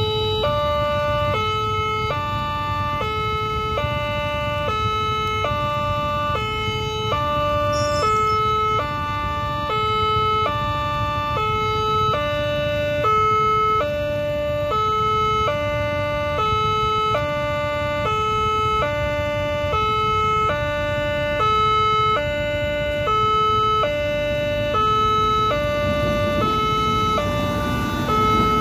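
Railway level-crossing warning alarm: an electronic two-tone signal alternating high and low, about one cycle every second or so, sounding while the crossing is closed for an oncoming train. Near the end the noise of the train reaching the crossing rises under it.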